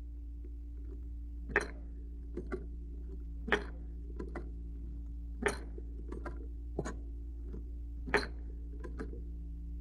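Browning cloth belt loader worked by hand, its mechanism clacking as each cartridge is pushed into the cloth belt: a loud metallic clack roughly every two seconds, with lighter clicks between.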